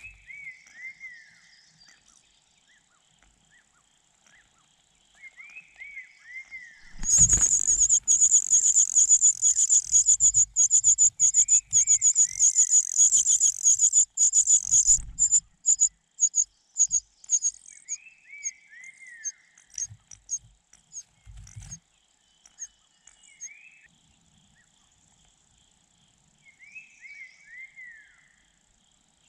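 Nestling birds giving rapid, high-pitched begging calls: a loud burst starting about seven seconds in, breaking up into scattered calls after several seconds, with low thumps of movement underneath. A short descending chirp repeats every few seconds in the background.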